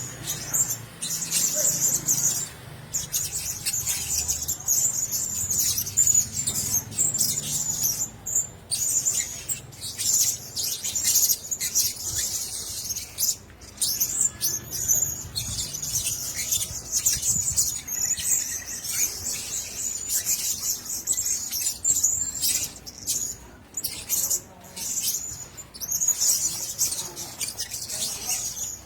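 Blue-crowned hanging parrots calling: a near-continuous stream of rapid, shrill, high-pitched chirps with brief pauses.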